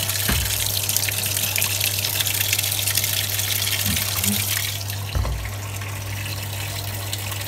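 Water gushing from a Samsung top-load washing machine's fill inlet into the tub of soapy clothes, over a steady low hum. The rush of water is loudest for the first five seconds and then eases, with a short thump about five seconds in.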